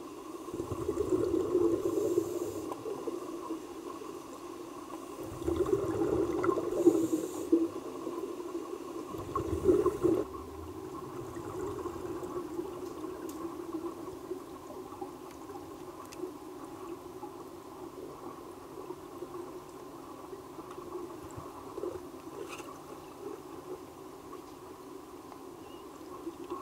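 Muffled underwater ambience of a swimming pool: a steady low hum, with louder bouts of churning water about a second in, around six seconds and around nine to ten seconds, then settling back to the even hum.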